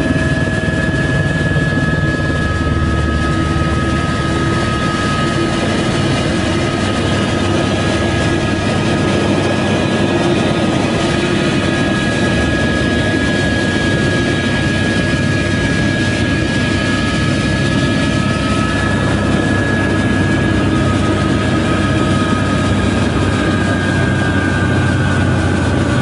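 Helicopter turbine engine and rotor heard from inside the cabin while landing: a loud, steady rotor rumble with a high turbine whine, which dips slightly in pitch near the end.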